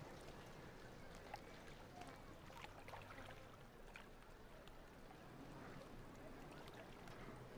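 Near silence: faint background ambience with a few soft ticks.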